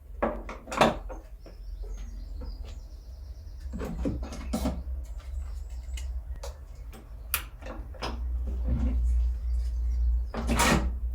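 Scattered knocks and clinks of small parts being handled and stowed while the sanding drums are changed on a spindle sander, with a brief squeak about three seconds in. The sander's motor is not running.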